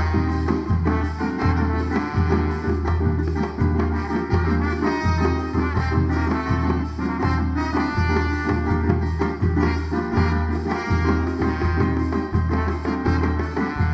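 A band playing an instrumental passage with no singing: a steady bass and percussion beat under melodic instruments.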